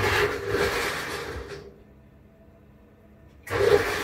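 Electric kitchen blender whirring in two short pulses as it chops ginger and garlic: a burst of about a second and a half that starts suddenly and fades, then another starting near the end.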